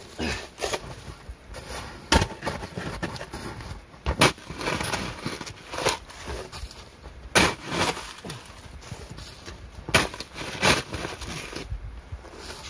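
Snow shovel digging into packed snow: scraping as the blade is pushed in, and a sharp knock every two to three seconds as it strikes and the snow is thrown.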